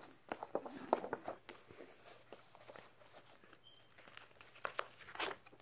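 Paper rustling and soft taps as a paperback book and its cover are handled and opened, in a few short rustles in the first second or so and again near the end.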